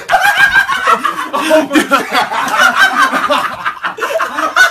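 Men laughing loudly and hysterically in fast, high-pitched bursts, with no break.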